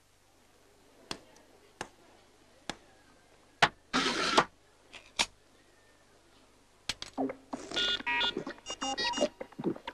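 Scattered short clicks and knocks, a short hiss about four seconds in, then a run of electronic beeps at shifting pitches from about seven seconds on, like synthesizer sound effects.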